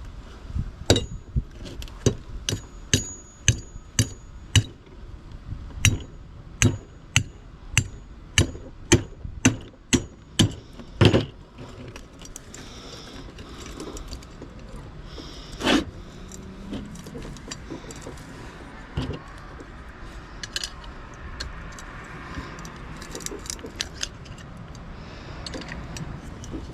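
Sharp metal-on-metal strikes, a steady series of about one or two a second, as scrap is hammered apart. About eleven seconds in they stop, leaving scattered lighter clinks and rattles of metal pieces being handled.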